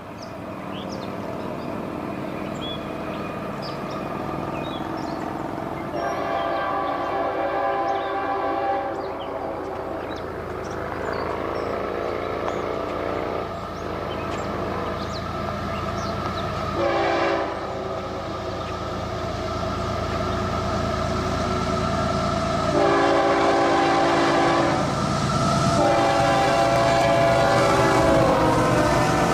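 Diesel locomotives of a BNSF freight train sounding their air horn in several blasts, long ones and one short one, over the steady running of the engines and the rumble of the cars, growing louder as the train approaches.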